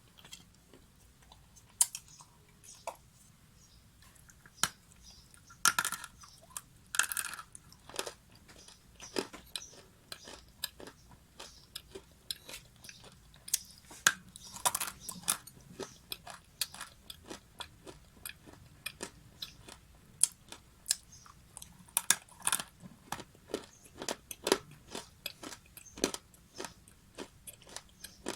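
Close-up crunching and chewing of dry clay: irregular crisp crackles and snaps, some bites giving a dense burst of crackling, with short quiet gaps between chews.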